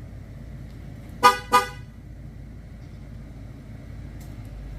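Ford F-150's horn chirping twice in quick succession, about a second in, in answer to a key-fob remote-start attempt, which the raised hood blocks.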